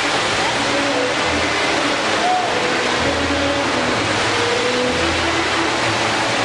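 Loud, distorted show soundtrack playing over a circus sound system: a dense, steady wash with a few held notes that shift in pitch and a low bass pulse about every two seconds.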